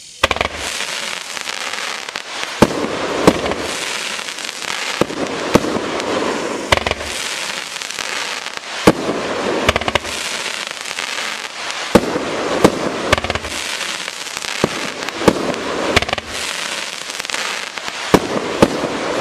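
A 30-shot consumer firework cake (Doremi 'Sweety Club', 500 g) firing shot after shot. A continuous fizzing hiss from the rising tails and bursts starts suddenly just after the beginning. It is broken by sharp bangs every second or so.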